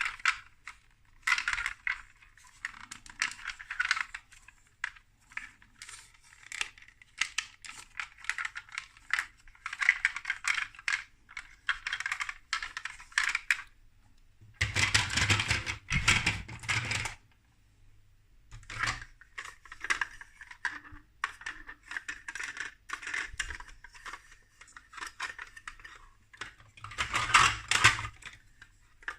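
Plastic building bricks clicking and clattering as pieces are picked up, handled and pressed together. Two denser, louder spells of rattling come about halfway through and near the end.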